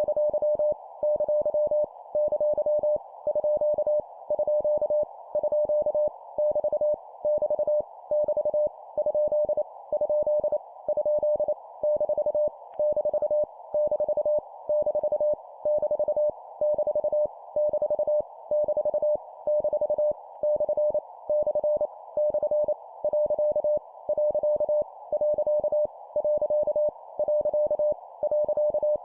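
Morse code (CW) sent at 25 words per minute: a single mid-pitched beep keyed in fast runs of dits and dahs forming punctuation characters. The characters come as groups about two-thirds of a second long with short gaps between, over a steady hiss.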